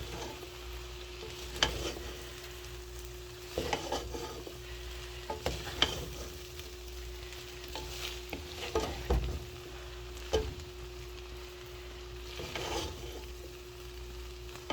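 Brown rice and vegetables sizzling in a hot pan while a spatula stirs them, scraping and knocking against the pan every second or two, over a steady hum.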